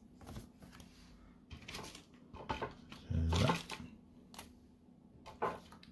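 Handling noise from card and plastic packaging: scattered rustles and light taps, with one louder dull knock about three seconds in.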